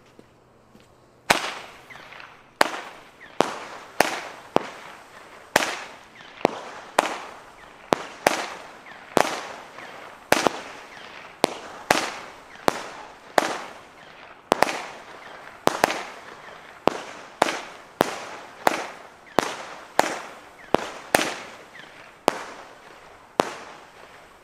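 Xplode Purple Crossette firework cake firing, starting about a second in: a steady run of sharp shots, roughly one and a half a second, each trailing off in a tail of smaller cracks as the crossette stars split.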